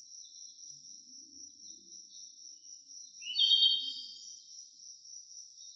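Steady high-pitched insect drone with a single bird call about three and a half seconds in; the call is the loudest sound.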